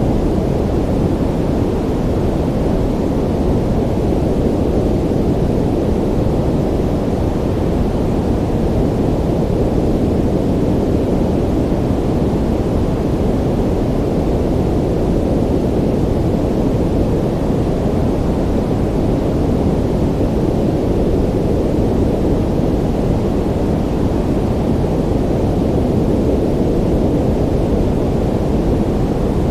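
Ocean ambience: a steady, deep wash of surf noise that holds at one level throughout, with no separate waves breaking.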